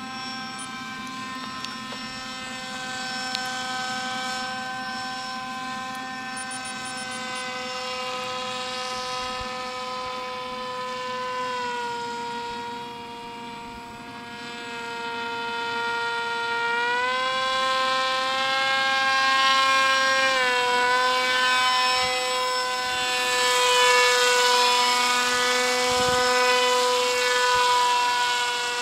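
Paramotor (powered paraglider) engine and propeller droning overhead, a steady high-pitched hum. Its pitch drops about halfway through, rises again a few seconds later and falls back, and it grows louder in the second half as the paramotor comes closer.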